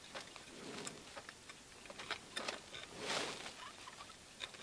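Faint handling sounds of a steel vernier caliper being positioned against a tie-rod end puller: small scattered clicks and a soft rub or breath about three seconds in.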